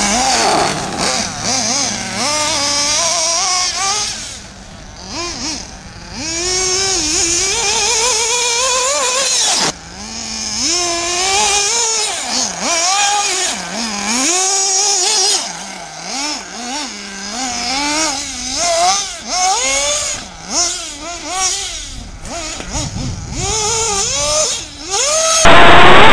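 Small .28 nitro engine of a 1/8-scale HSP Bazooka RC buggy, a high-pitched whine that rises and falls over and over as the buggy accelerates and backs off around a dirt track. Near the end it jumps suddenly much louder, heard right beside the engine.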